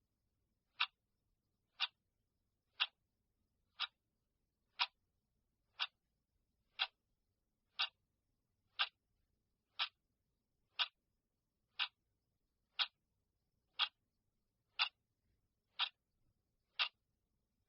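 Clock ticking once a second, marking the seconds of a countdown timer: about seventeen short, sharp ticks evenly spaced, with silence between them.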